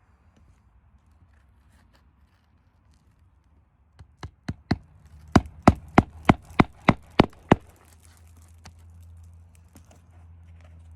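A series of about a dozen sharp hammer blows. The first few come unevenly, then they settle into a steady rhythm of about three a second before stopping. This is typical of driving roofing nails by hand.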